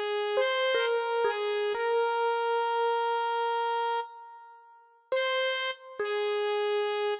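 Background music: a slow melody of long held notes, which dies away about four seconds in and starts again about a second later.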